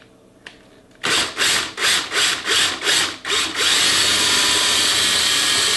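Cordless drill backing out a long machine screw: a quiet moment, then short pulses of the trigger about three a second, then the motor running steadily as the screw spins out.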